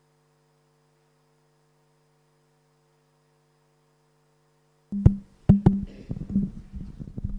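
A faint steady hum, then about five seconds in a live microphone cuts in with a low hum and a run of sharp knocks and bumps, three of them loud, the sound of handling at a desk microphone.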